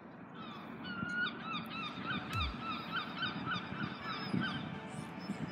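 A bird calling a long run of short, repeated notes, about three a second, that fade out shortly before the end. A single low thump comes about halfway through.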